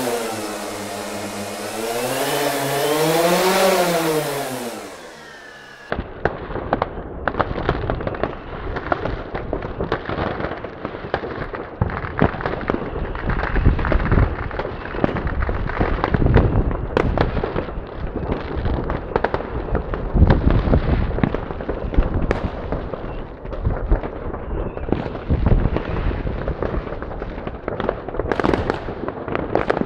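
DJI Phantom Vision+ quadcopter's propellers whining, the pitch rising and falling as the motors speed up and slow down. About six seconds in this cuts off abruptly and gives way to a dense, continuous crackle of many fireworks banging and popping at once, with louder bangs here and there.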